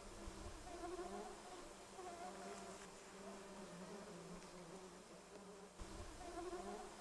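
Faint buzzing of flies, a wavering hum that swells and fades several times as they move about.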